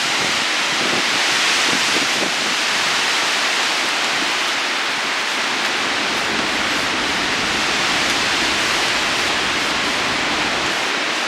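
Storm-force wind blowing hard through tall trees: a loud, steady rushing that swells slightly now and then.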